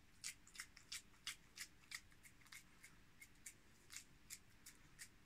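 Wet hands squeezing and smoothing minced meat along a metal skewer: faint, quick sticky smacks, about three a second.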